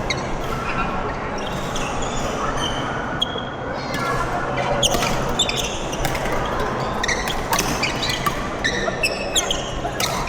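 Badminton doubles rally in a sports hall: several sharp racket hits on the shuttlecock and short squeaks of shoes on the court floor.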